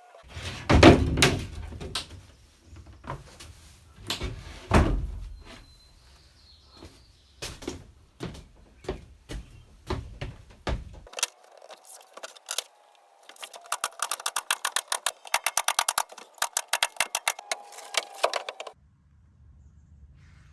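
A series of irregular knocks and thuds, the loudest near the start, followed by about six seconds of fast, evenly spaced clicking that stops abruptly near the end.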